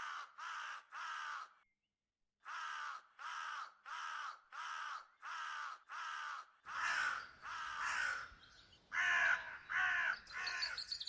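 A crow cawing over and over: three harsh caws, a short pause, then a long run of caws at about two a second. A steady background hiss comes in about seven seconds in, under the last caws.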